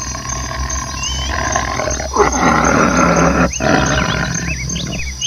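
Tiger roaring in long, harsh calls broken by short pauses, with birds chirping faintly behind.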